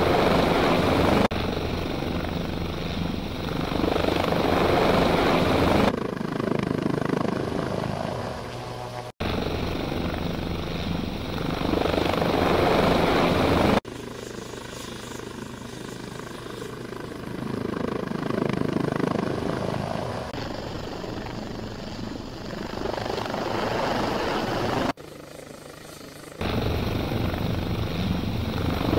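Helicopter rotor and engine sound running steadily, broken by several abrupt cuts, with a momentary dropout about nine seconds in and a quieter stretch for a second or two near the end.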